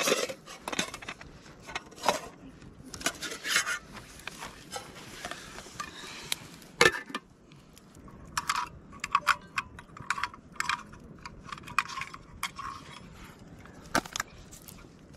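Handling noises of camp cookware: rustling, knocks and scrapes, with one sharp knock a little before halfway that is the loudest. From about halfway, quick light metallic clicks and clinks as a portable gas stove and a metal cookpot are set up.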